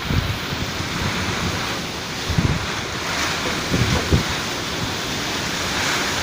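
Heavy cyclone rain falling as a steady hiss, with wind buffeting the microphone in a couple of brief low gusts.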